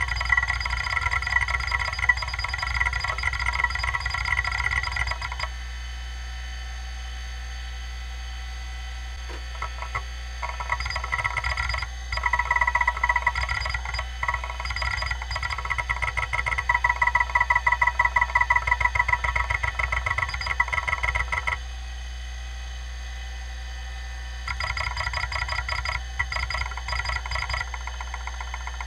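Kalok KL-320 MFM hard drive running, its spindle humming steadily under long runs of rapid, buzzing head-seek clicks. The clicking stops twice for a few seconds and then resumes. The drive is badly damaged: one head arm has been cut off after a head broke loose inside, and it still seeks and boots on its remaining three heads.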